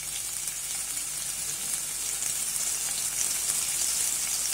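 Chopped spring onions sizzling in a little hot oil in an aluminium wok: a steady hiss that grows slightly louder.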